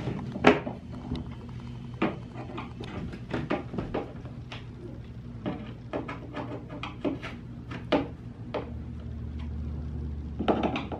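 Irregular clicks and knocks as small plastic lock fittings are pressed and turned into place on a particleboard cabinet panel, with hands handling the panels.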